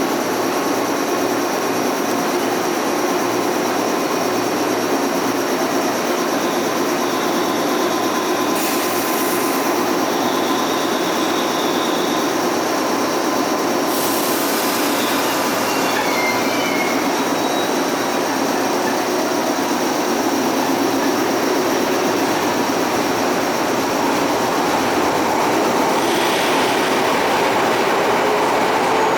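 Electric train at the platform, a loud steady running noise with faint steady tones and no breaks.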